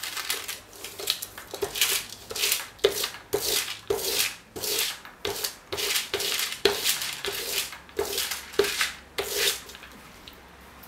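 A paint brayer is rolled back and forth over paper through a layer of oil paint mixed with cold wax medium, spreading it thin. The strokes come about twice a second and stop shortly before the end.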